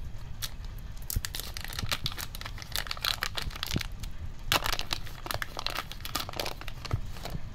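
Thick plastic wrapper of a trading-card booster pack being torn open and crinkled in the hands: a run of irregular sharp crackles and tears.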